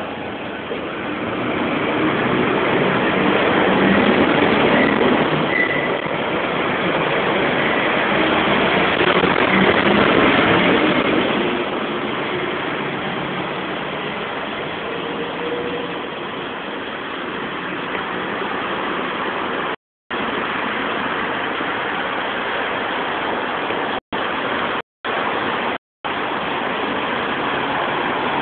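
Road traffic noise from the roads overhead, echoing through a concrete underground passage and stairwell as a steady rumbling wash. It swells twice as vehicles pass. The sound cuts out for a moment about twenty seconds in and three more times shortly after.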